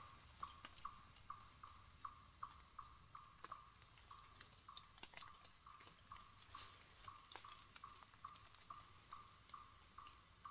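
Faint, short call of a small woodland animal, one mid-pitched note repeated very evenly about twice a second, with scattered faint clicks and ticks.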